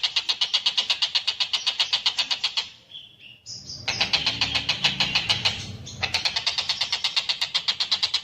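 Tengkek buto, a kingfisher, calling in a fast run of sharp, evenly spaced chattering notes, about eight a second. The run breaks off briefly about three seconds in and then starts again.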